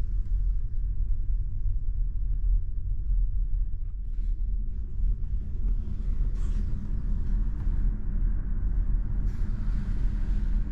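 Steady low rumble and hum of the car ferry's engines, heard inside a passenger cabin, with a few brief soft rustles of handling.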